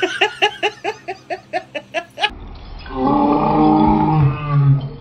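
A woman's frightened outcry at a fake cockroach: a rapid string of short cries, about five a second, each falling in pitch, then after a cut a long, low, drawn-out wail.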